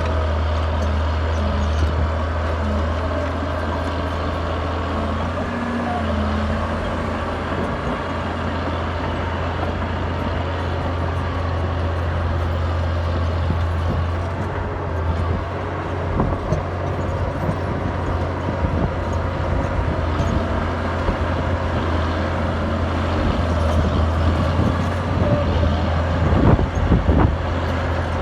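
Caterpillar D6D crawler dozer's six-cylinder diesel engine running under load with a steady low drone while it breaks out shale and clay. From about halfway through, irregular clanks and crunches of the tracks and breaking rock come through, more often near the end.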